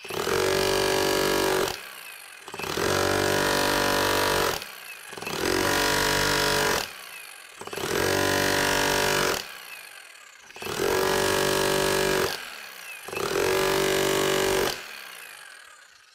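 Flexco electric rivet driver hammering SR fastener rivets down through a rubber guide block into a conveyor belt splice. It comes in six separate bursts of about two seconds each, one rivet per burst, with short pauses as the tool moves to the next rivet.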